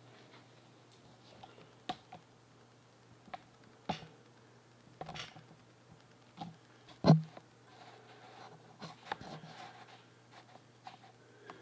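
Scattered small metal clicks and knocks as the bobbin winder assembly of a Singer 15-91 sewing machine is handled and fitted into place, the loudest knock about seven seconds in, over a faint low hum.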